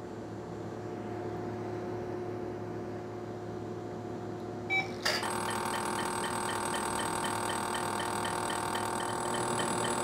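Lumenis VersaPulse 100 W holmium laser firing at full power, 2.5 joules a pulse at 40 pulses a second. The unit hums steadily, then a short beep sounds about five seconds in. Firing starts just after it as a steady buzzing with a cluster of tones.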